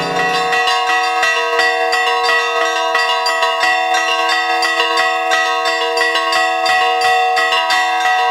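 Russian Orthodox church bells rung together in a fast, dense peal: several bells of different pitches struck many times a second, their tones ringing on over one another. The deeper bells heard at the very start drop out about half a second in, leaving the higher bells.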